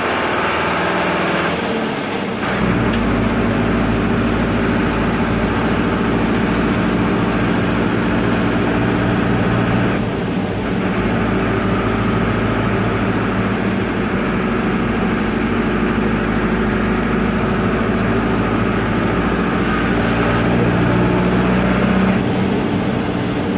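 Air-cooled Deutz F4L912 four-cylinder diesel of an Otokar M-2000 minibus, noisy, running under way and heard from the cab. Its note shifts a few times: about two seconds in, around ten seconds in, and near the end.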